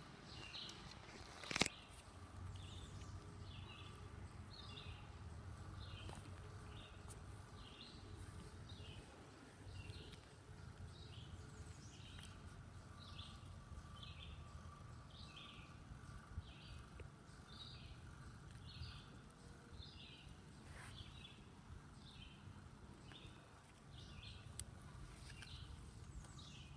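A bird calling over and over, faint short high chirps at an even pace of a bit more than one a second, over outdoor background noise. A single sharp tap or knock about a second and a half in stands out above it.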